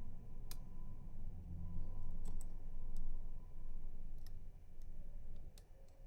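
Rotor pick working inside a six-pin FAC cylinder lock: irregular sharp clicks, about seven over six seconds, over a low handling rumble.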